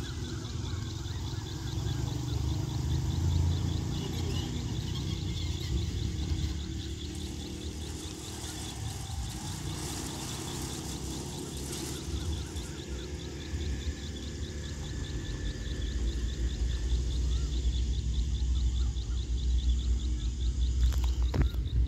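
Low, steady diesel engine rumble of a distant train locomotive, growing louder over the last few seconds. Insects chirp in a fast, regular rhythm over it, and there is a sharp click near the end.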